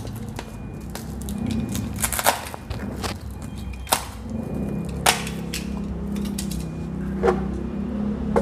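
Packing straps on a plastic-wrapped box being cut with a utility knife and pulled loose, with several sharp clicks and snaps over handling noise. A low steady hum comes in about halfway through.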